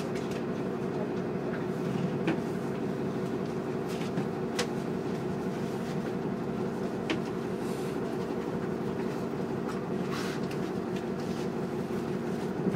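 Cabin drone of a Nova Bus LFS city bus with its Cummins L9 diesel engine running steadily, heard from a passenger seat. A few short sharp clicks break in now and then.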